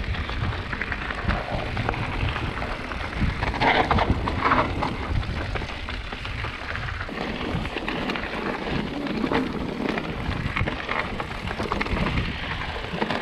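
Wind buffeting the microphone and mountain-bike tyres rolling over dry dirt and gravel while riding singletrack: a steady rushing, crunching noise with an uneven low rumble.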